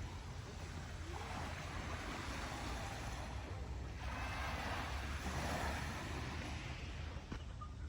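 Small sea waves washing in, the hiss swelling and easing every couple of seconds, over a low rumble of wind on the microphone.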